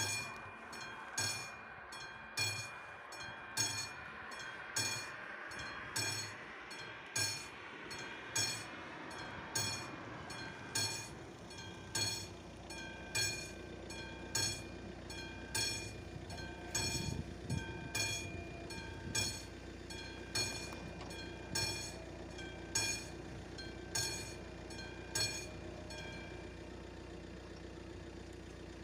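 Classic level-crossing bell of an AŽD 71 crossing ringing its warning for an approaching train, one ringing strike about every second and a quarter, stopping a few seconds before the end. A steady low hum sets in about halfway through.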